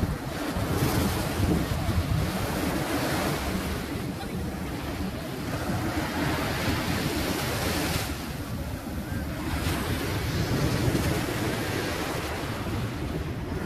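Small waves breaking and washing up on a sandy beach, the surf swelling and fading every few seconds, with wind buffeting the microphone.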